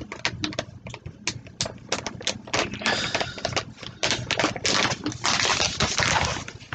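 A paper bag of almond flour being torn open and crinkled by hand: a rapid string of sharp crackles and rips, with denser rustling about three seconds in and again near the end.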